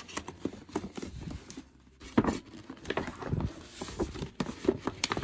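Glossy paper gift bag rustling and crinkling as hands handle it, in a run of short crackles and taps with a brief lull about two seconds in.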